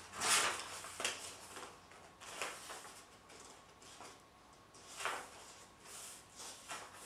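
Paper rustling as book pages are leafed through and handled: several short, soft swishes a second or more apart.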